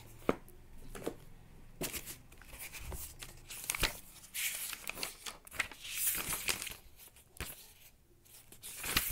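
Paper pages of a textbook and a notebook being turned and handled: an irregular run of rustles and soft clicks.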